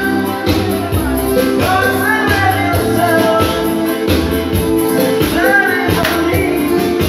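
Music: a song with a singing voice over instruments and a steady beat.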